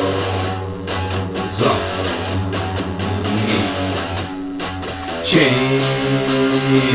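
Instrumental break in a home-recorded alt-folk song: guitar chords ringing over a steady bass note, with a new chord struck about a second and a half in and another about five seconds in.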